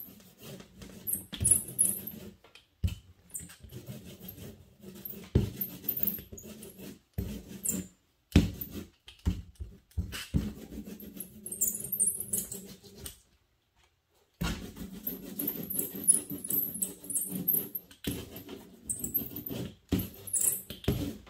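Small hand tool rubbing and dabbing wet acrylic paint on heavy watercolour paper: irregular scuffing strokes broken by sharp taps, with a brief pause a little past the middle.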